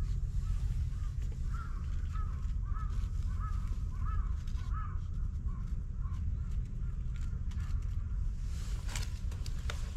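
A crow cawing in a run of short calls from about a second and a half in to about five seconds, over a steady low rumble. A few sharp clicks come near the end.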